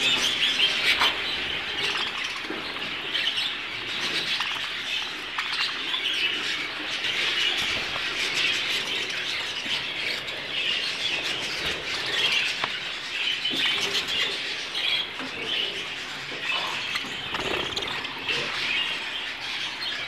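A flock of budgerigars chattering and chirping continuously, a dense mass of short overlapping calls.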